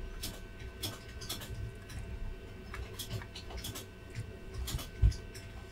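Small irregular clicks and ticks from soldering work on a circuit board as the iron tip is held on a connector pin, with a dull knock about five seconds in and a faint steady electrical whine under it.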